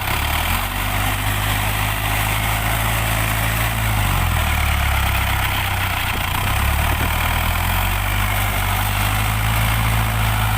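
Heavy diesel engine of farm machinery running steadily. Its engine note drops about four seconds in and comes back up about three seconds later.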